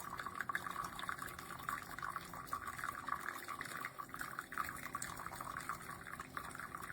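Keurig K-Mini single-serve coffee maker dispensing hot water into a mug, with no pod in: a steady stream of running water with fine crackles.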